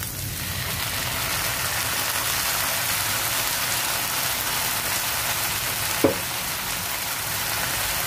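Frying pan of fried tofu and vegetables sizzling steadily, the sizzle growing louder as dark sauce is poured into the hot pan. A single brief knock about six seconds in.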